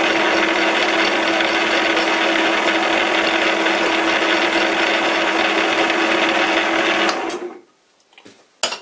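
Metal lathe running under power during single-point thread cutting, its motor and change gears driving the lead screw with a steady hum and whine. It is switched off about seven seconds in and spins down, then a short click follows near the end.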